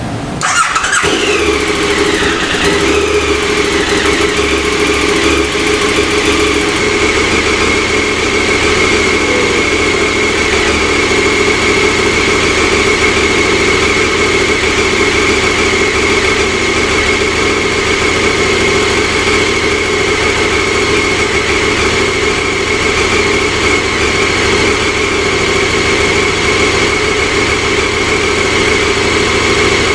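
KTM 1290 Super Adventure R's V-twin engine starting about half a second in. The revs flare and settle over the next couple of seconds, then it idles steadily.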